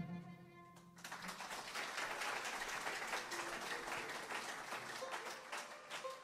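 A sung note fades out, then applause from a group for several seconds, thinning out near the end.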